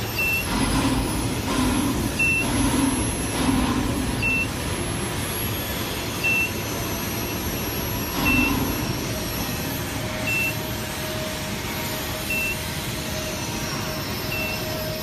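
Short high-pitched electronic beeps, one every two seconds, over a steady din of factory machinery. A steady tone comes in about nine seconds in.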